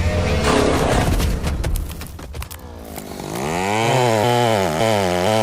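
Power tool running, noisy at first; about three seconds in its motor rises in pitch and runs on with a wavering pitch.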